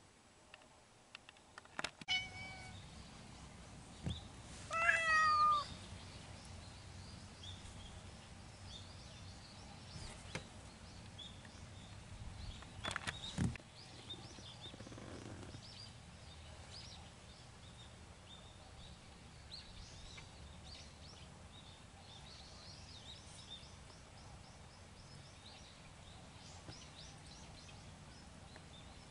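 Stray cat meowing: a short meow about two seconds in, then a longer, louder meow whose pitch rises and falls about five seconds in.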